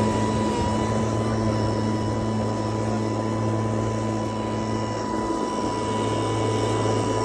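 Einhell GE-CM 18/30 Li cordless electric lawn mower running steadily: a constant motor hum and whine over the rushing of the spinning blade.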